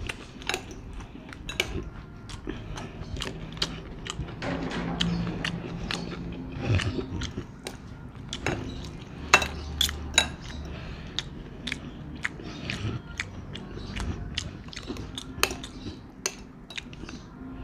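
Metal spoon and fork clinking and scraping against a ceramic plate while tossing thick lomi noodles in sauce: many irregular sharp taps.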